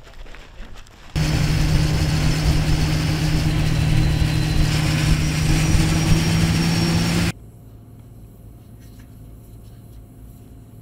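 Armoured military vehicle's engine running steadily while under way, a loud even drone heard from on top of the vehicle. It starts and cuts off abruptly, lasting about six seconds, and gives way to a faint low hum.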